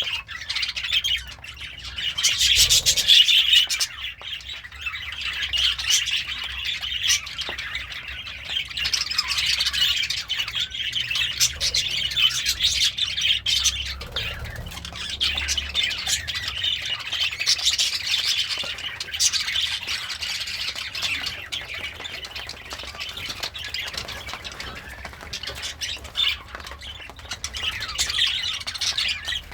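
Budgerigar chattering and warbling continuously, a rapid run of chirps, squawks and clicks, loudest a couple of seconds in.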